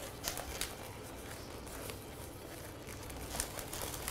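Faint rubbing and creaking of latex modelling balloons being handled and twisted, with a few light clicks.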